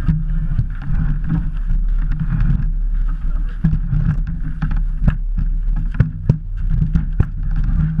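Bobsleigh runners rumbling over the ice at speed: a steady low rumble with a hiss above it, broken by sharp knocks and rattles that come more often in the second half.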